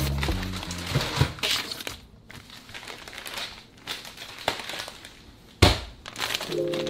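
Plastic food packets crinkling and rustling as they are grabbed and handled, with one loud sharp snap about five and a half seconds in.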